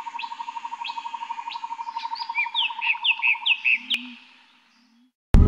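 Bird-like chirps, first scattered and then a quick run of falling whistles, over a steady rapid pulsing trill, fading out about four and a half seconds in. Near the end a loud rush of wind noise breaks in suddenly.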